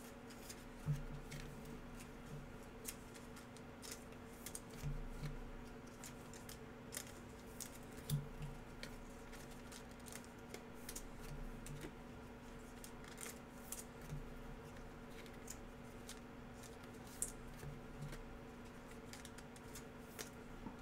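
Trading cards handled and shuffled: many faint, sharp clicks and snips of card stock, with a few soft thumps, over a steady low electrical hum.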